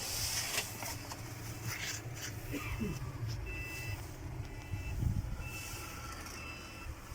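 A short high electronic warning beep repeating about once a second, like a reversing alarm, over a steady low engine rumble, with a few light metallic clatters.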